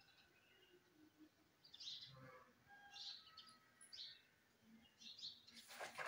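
Indian ringneck parakeet giving faint, short, high chirps every second or so, with a brief harsh rasping note near the end.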